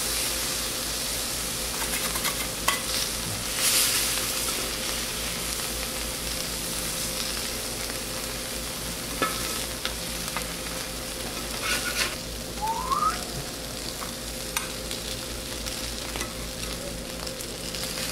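Sausage, zucchini and bread sizzling steadily on a flat steel griddle that has been switched off and is cooking on its leftover heat. Metal spatulas scrape and tap on the plate now and then as the zucchini slices are lifted onto the bread.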